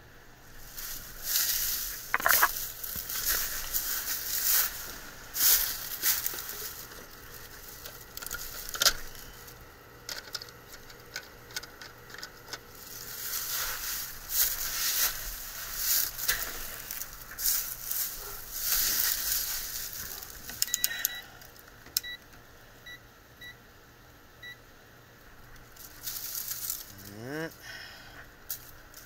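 Hand tools and metal parts rattling and clicking with rustling handling noise as a technician works on the unit, with a few short electronic beeps about two-thirds of the way through and a brief rising motor whine near the end.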